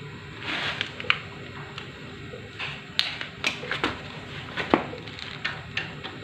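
Clinks and knocks of metal tools and engine parts being handled: about a dozen sharp, irregular strikes, some ringing briefly, with a short rustle near the start.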